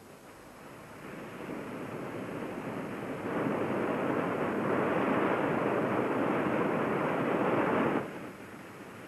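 Rushing, churning white water: a steady roar that builds over the first few seconds, holds loud for several seconds, then cuts off abruptly about eight seconds in.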